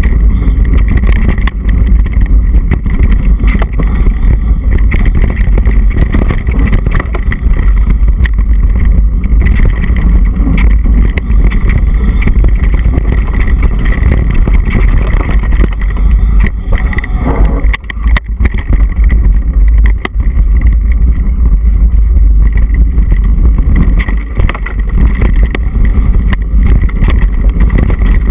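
Wind rushing over the microphone of a camera riding a mountain bike on a fast downhill run: a loud, constant deep rumble. Rattles and knocks from the bike bouncing over the rough dirt trail run through it.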